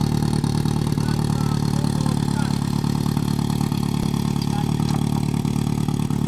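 Portable fire pump's petrol engine running steadily at an even speed while the hoses are coupled up.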